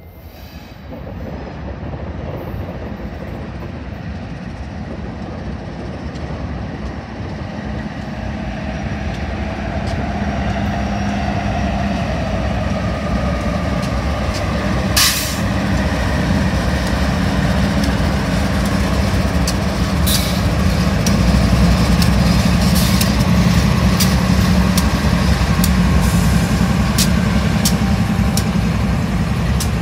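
Several diesel locomotives at the head of a BNSF grain train approach and pass close by, their engines running in a steady low drone that grows louder over the first twenty seconds. There is one sharp bang about fifteen seconds in, and wheels click over the rail joints through the last ten seconds.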